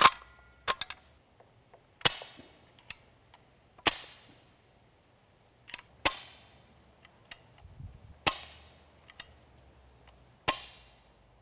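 HellBoy .177 CO2-powered semi-auto BB rifle firing five single shots about two seconds apart, each a sharp crack with a short ring, with fainter clicks between shots. A click right at the start as the magazine is seated.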